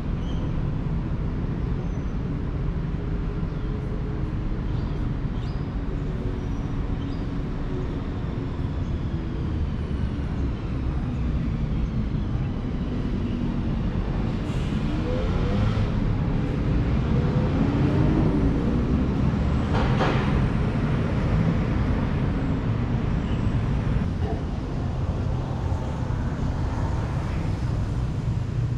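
Steady road traffic rumble, with an engine rising and falling in pitch as a vehicle passes about halfway through, and a single sharp click near 20 seconds in.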